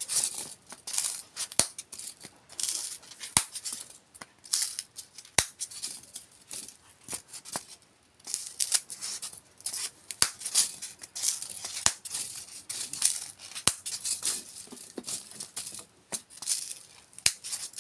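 Styrofoam being crushed and broken by hand: repeated bursts of squeaky, crackling crunches, each lasting about a second, with a sharp click now and then.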